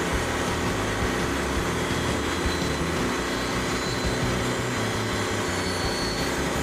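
Frontier OS27 portable band sawmill running steadily, its engine and band blade making a continuous machine sound.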